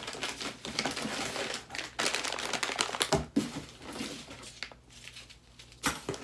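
Plastic bags and packaging crinkling and rustling as they are rummaged through, with a soft knock a little after three seconds in.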